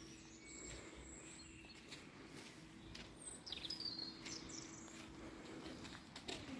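Faint songbird chirps and short whistled calls, a few about half a second in and more around three to four seconds in, over a faint steady low hum.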